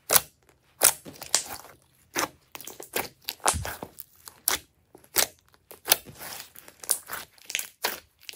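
Glossy slime being squeezed and pressed by fingers: irregular sharp pops and crackles, about one or two a second, with softer squishing between them.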